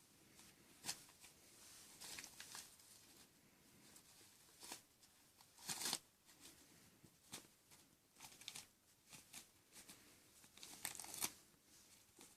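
Kittens playing: quiet, scattered scratchy rustles and scrapes, the loudest about six seconds in and again near the end.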